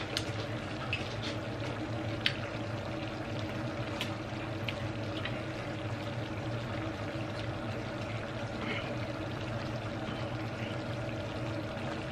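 Eating sounds at a table: scattered small clicks and ticks as crab shell is picked apart by hand, over a steady background hum.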